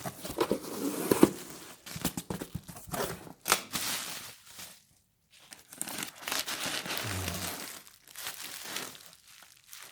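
A shipping package being opened by hand: packing tape tearing and packing material crinkling and rustling in irregular bursts, with a short pause about five seconds in.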